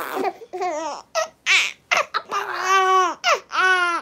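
Baby laughing and squealing in a string of short high-pitched calls, with two longer drawn-out squeals in the second half.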